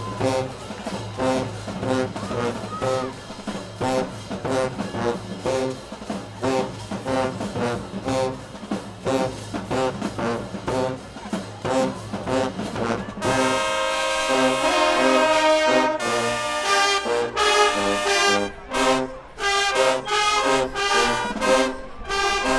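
High school marching band playing: a short riff repeats over a steady beat, then about thirteen seconds in the full brass section comes in louder with held chords.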